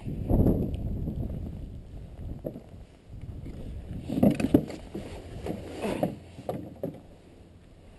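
Low wind rumble on the microphone with footsteps, then a cluster of irregular knocks and rustles about four to seven seconds in as the driver climbs into the kart seat; the kart's engine is not running.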